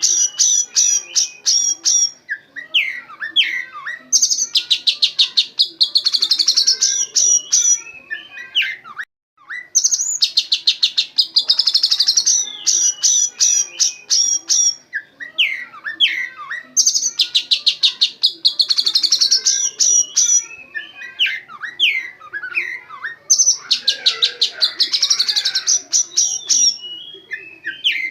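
Oriental magpie-robin (kacer) singing a loud song of repeated phrases, each a run of rapid high chattering notes followed by sliding whistles, filled with white-rumped shama (murai batu) calls. The song cuts out briefly about nine seconds in.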